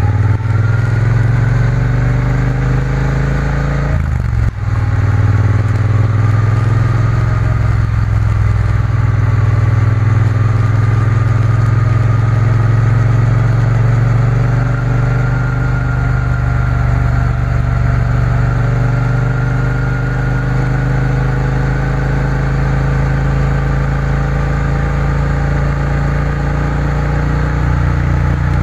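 Triumph Bonneville T120's parallel-twin engine running under way, heard from the bike itself. The pitch climbs, breaks off briefly about four and a half seconds in at a gear change, then rises again and settles into a steady cruise.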